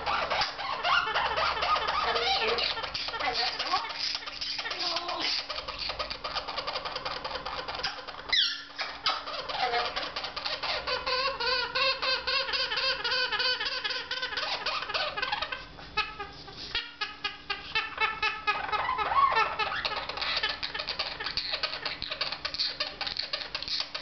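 White-capped pionus parrot making a continuous chattering, warbling call that keeps shifting in pitch, with a sharp falling squeak about eight seconds in.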